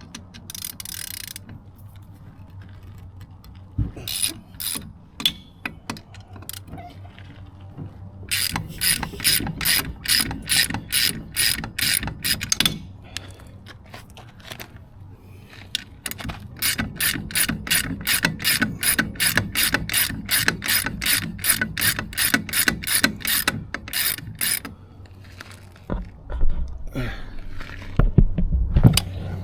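Ratchet wrench clicking as it backs out the bolts that hold the lower unit to a 25 hp Yamaha outboard. There are two long, even runs of about three to four clicks a second, with a few short bursts before them and some low knocks near the end.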